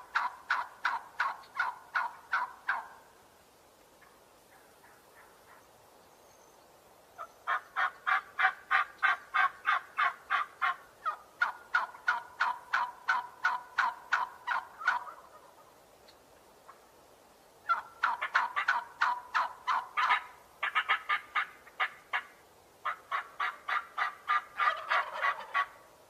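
Turkeys gobbling: fast rattling runs of notes, about four to five a second, in several bouts with pauses of a few seconds between them. The longest run lasts about eight seconds.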